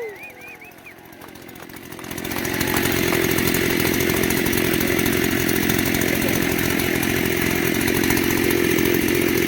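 Two-stroke chainsaw engine whose pitch falls away as a rev dies down. It runs quietly for a couple of seconds, then comes up loud and runs steadily from about two seconds in.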